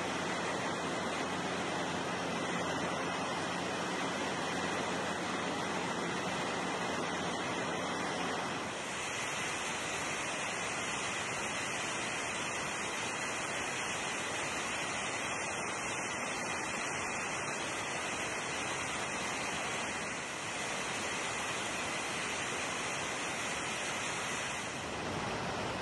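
Steady rush of wind over an outside-mounted camera on a Cessna 177RG Cardinal in flight. For the first several seconds a low engine drone sits under it. The sound changes abruptly about nine seconds in, and twice more later, at cuts between shots.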